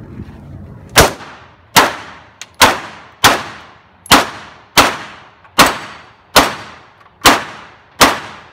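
Ten pistol shots fired one after another at an even pace, about one every 0.8 seconds, starting about a second in. It is a competitor shooting a course of fire in a practical shooting match.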